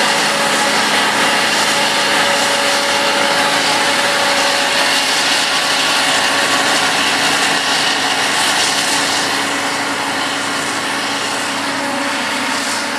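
Claas Jaguar self-propelled forage harvester working under load, its engine and chopper running with a steady hum and rush as it chops whole-crop cereal silage and blows it into a trailer alongside.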